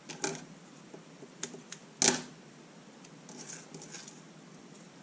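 Clicks and knocks of small hand tools being handled and set down on a cutting mat: a roll of electrical tape and a pair of scissors. The loudest knock comes about two seconds in, followed by softer rustling of the taped wire.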